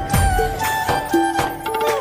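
Background music with a steady drum beat under a melody that slides between notes.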